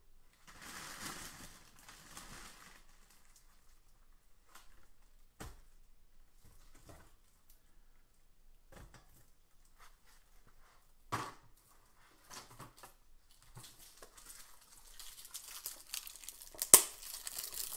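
Wrapping or packaging handled close by, crinkling and rustling. There is a spell of rustling at the start, a few scattered knocks and clicks, then denser crinkling over the last few seconds with one sharp, loud click near the end.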